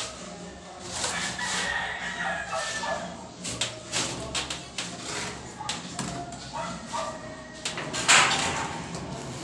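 A rooster crowing early on. It is followed by a run of sharp taps and scrapes from the plastering work, with one louder hit near the end.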